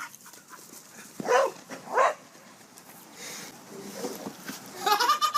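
A dog barking twice, about a second and two seconds in.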